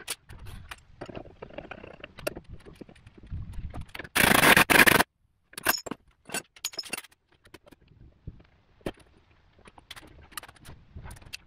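Metal hand tools and bushing press pieces clinking, scraping and knocking while a rear suspension bushing is fitted, with a loud hiss about four seconds in that lasts about a second and cuts off sharply.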